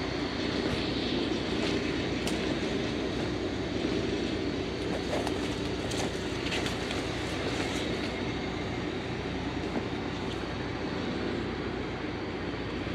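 A vehicle engine running steadily at idle, an even low rumble, with a few faint clicks over it.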